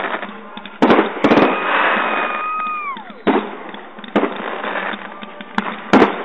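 Backyard fireworks going off: several sharp bangs at uneven intervals. About a second in, a whistle starts, holds one pitch, then falls away steeply near the three-second mark.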